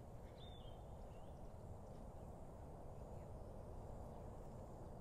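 Faint outdoor ambience: a steady low background noise with two brief high chirps, like a small bird, about half a second and a second in.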